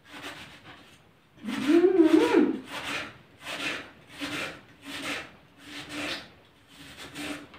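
Knife dicing an onion on a wooden cutting board: short chopping-and-scraping strokes, about two a second. About one and a half seconds in there is one longer, louder sound that wavers in pitch.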